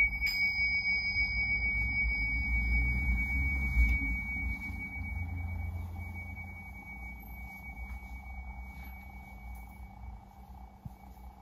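A pair of tingsha cymbals struck together once right at the start, then a long, clear, high ringing tone that slowly fades away, over a low hum.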